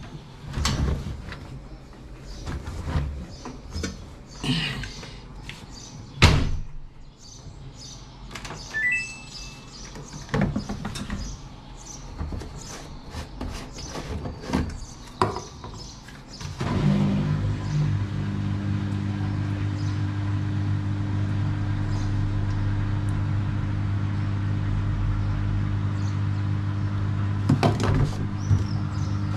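Knocks and clicks of clothes and a Samsung washing machine's detergent drawer being handled while it is loaded. About 17 seconds in, the machine starts its cycle with a steady hum that carries on.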